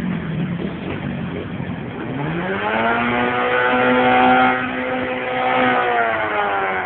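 A motor vehicle's engine revs up about two seconds in, holds a steady high pitch for several seconds, then eases off near the end.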